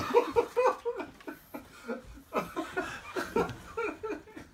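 Excited laughter in a rapid run of short, breathy laughs, several a second.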